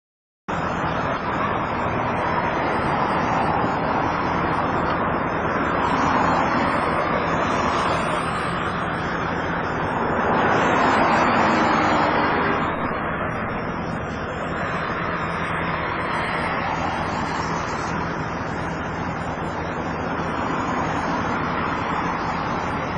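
Motor vehicle noise: a steady rushing of engine and wind that cuts in suddenly about half a second in and swells briefly near the middle.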